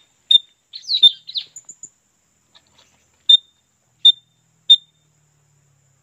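Handmade bamboo bird-call whistle (tolung) blown to lure puling birds: about six short, sharp, high whistled notes, in a quick group of three with a falling note about a second in, then three more evenly spaced after a pause.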